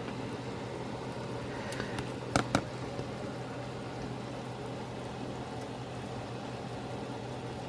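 Pot of ground beef vegetable soup boiling on the stove, with a steady low hum underneath. A few light clinks of the skimming spoon against the pot about two seconds in, the last two the loudest.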